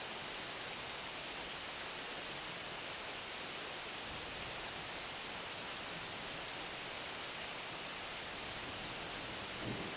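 Steady rain falling, an even hiss with no let-up, and a brief low thump just before the end.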